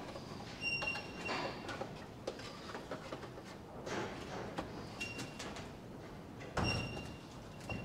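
Light knocks and clatter of a wooden box being handled and fitted against a corrugated-iron shed wall, with a heavier thump about six and a half seconds in. Short high-pitched peeps recur several times.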